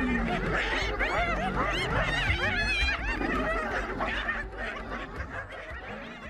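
Many overlapping laughter-like chattering calls, several voices at once, fading out near the end.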